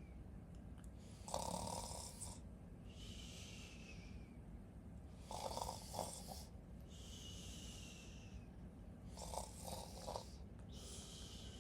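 Snoring in a slow, regular rhythm: three snores on the in-breath, about four seconds apart, each followed by a breath out that carries a faint falling whistle.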